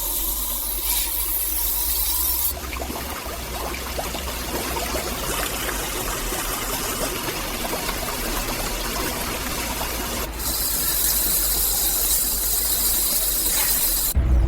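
Steady machine noise, a high hiss over a low hum. About two and a half seconds in it changes to a rougher, grainier whirr, and the high hiss returns about ten seconds in.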